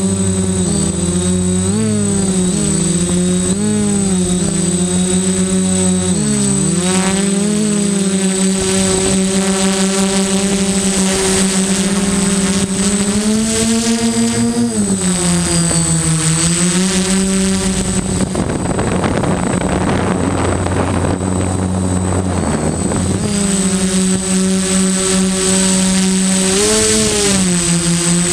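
Multirotor drone's electric motors and propellers buzzing, heard from on board, the pitch bending up and down with the throttle. In the middle the buzz gives way for a few seconds to a rushing noise, then returns, with a thin steady high whine throughout.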